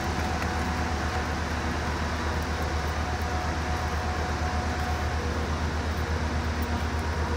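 Diesel passenger locomotive idling while stopped: a steady, fast-pulsing low rumble with a faint steady whine above it.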